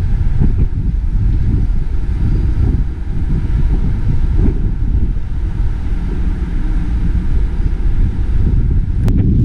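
Wind buffeting the camera microphone on an open ship's deck: a loud, uneven low rumble, with a couple of faint clicks near the end.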